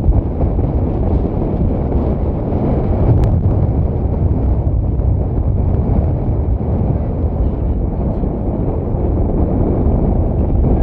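Steady low roar of an erupting volcano's vent, mixed with wind buffeting the microphone.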